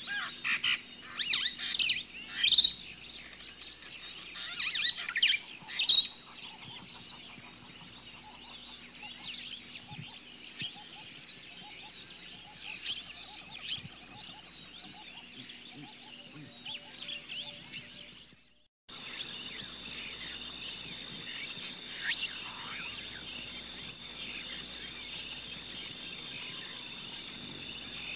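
Wild birds chirping and singing, many short calls over a steady high trill. About two-thirds of the way through the sound cuts out abruptly and gives way to a steady, high-pitched animal chorus that pulses in an even rhythm.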